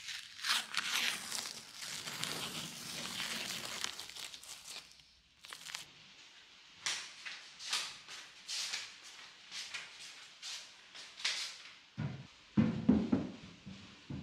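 Blue painter's tape being peeled off a freshly painted skirting board, a crackly tearing and crinkling for the first few seconds. Then footsteps on a tiled floor about once a second, and a couple of low thuds near the end.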